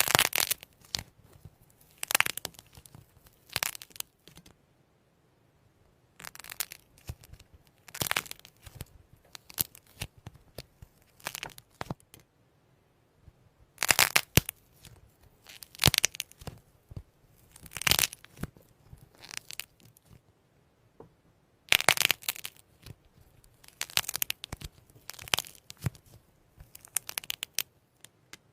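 Slime being worked by hand, squeezed and poked: irregular bursts of crackling and popping every second or two, with short quiet pauses between.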